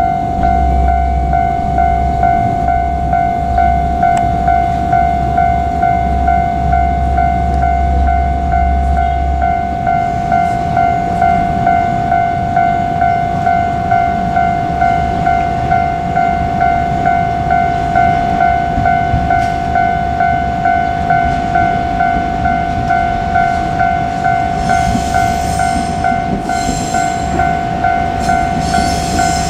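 Japanese railway level-crossing warning bell ringing: a steady electronic ding that repeats at an even pace. Near the end, higher-pitched hiss and squeal come in as the KiHa 47 diesel railcar draws near.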